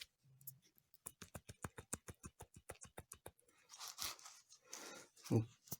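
A worn lower ball joint from a Great Wall Hover H3's front suspension, off the car and worked by hand, clicking and knocking in quick runs of about six to eight knocks a second, with two louder scrapes near the end. The knocking is the sign of a worn-out, loose joint.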